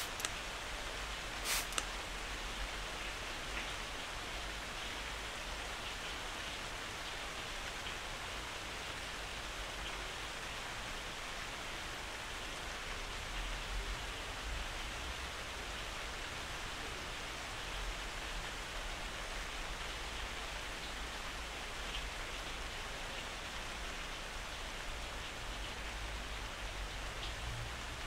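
Steady rain, a soft even hiss, with one sharp click about two seconds in.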